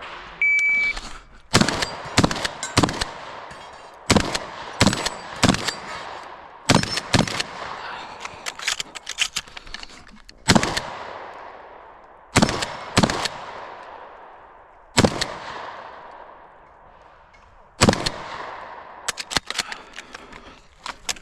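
A shot-timer start beep about half a second in, then a shotgun fired about two dozen times. The shots come in quick pairs and clusters, with short pauses between the groups for reloading, and each shot trails off in echo.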